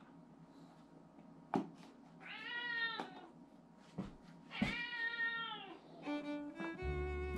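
A domestic cat meows twice: two drawn-out meows, the second longer, a couple of seconds apart, with a few sharp clicks around them. Background music with string instruments comes in near the end.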